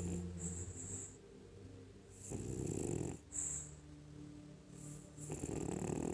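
French bulldog snoring: a low snore at the start, then two loud raspy snores about three seconds apart, with a short high whistle on the breaths between them.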